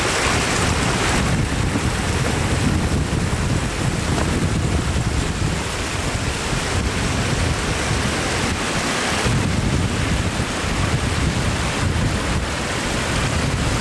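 Shallow floodwater rushing steadily as it spills over the edge of a road in a broad cascade.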